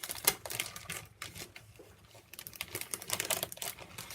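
Paper packaging and thin Lokta sheets crinkling and rustling as a taped pack is unwrapped by hand: a quick, irregular run of small crackles and clicks that eases off for a moment midway, then picks up again.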